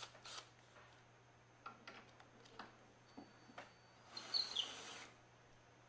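Light knocks and handling clicks of log swing parts, then about four seconds in a scraping rub with brief squeaks lasting about a second, as a cedar log arm is pushed up against the swing's back.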